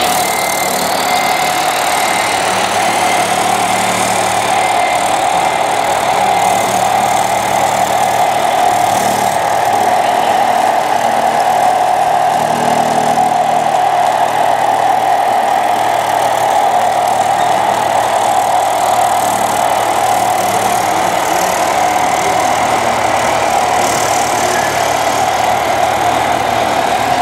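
Radio-controlled model Hamm H 20i road rollers running, a steady idling-engine sound with a constant pitched hum.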